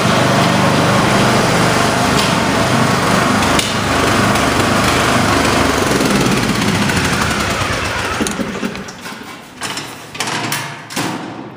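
Riding lawn mower's small engine running close by, then dying away about eight seconds in, with a few knocks near the end.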